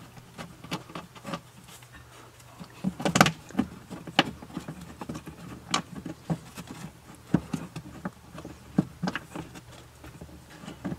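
Scattered clicks and knocks of hands working a screw against the plastic heater box housing under a dashboard, trying to get it to thread; the screw won't start. A louder cluster of knocks comes about three seconds in.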